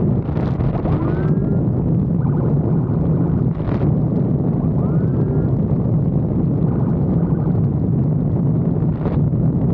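Police motorcycle riding at speed: a steady engine drone under wind rushing over the microphone, with two short, faint rising siren whoops, one about a second in and one around five seconds.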